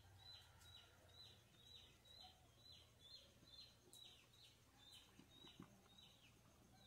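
Near silence with a faint bird chirping over and over, a short falling note about twice a second, and a couple of faint clicks in the second half.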